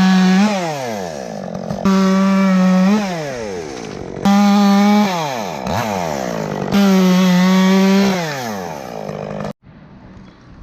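Chainsaw revving to full speed in four bursts of about a second each, its pitch falling back toward idle after each burst. It cuts off abruptly near the end.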